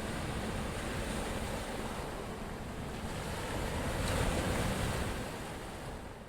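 Ocean waves washing onto a shore, a steady rushing surf that swells about four seconds in and then fades out near the end.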